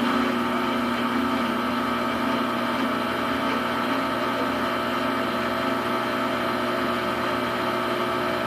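Samsung washing machine spinning a load of duvets: a steady motor whine over a low hum, which cuts off suddenly at the very end.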